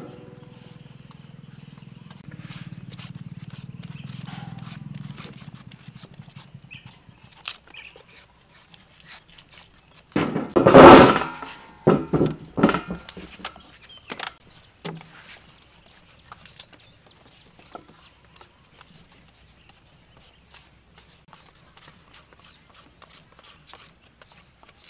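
Knives and hand peelers scraping the skin off sweet potatoes: small scrapes and clicks, with a faint low hum for the first few seconds. About ten seconds in comes a loud clatter, then several sharper knocks, as peeled sweet potatoes are set down on a steel tray.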